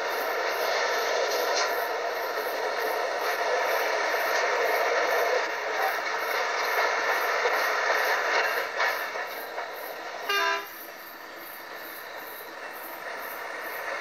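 Steady running noise of a train travelling along the track, heard from the front of the train. About ten seconds in the train's horn gives one short toot, and the running noise is a little quieter after it.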